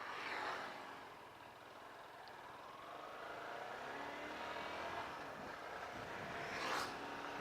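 Road traffic: vehicles passing, one going by just after the start and another building up and passing shortly before the end, over a steady road hiss.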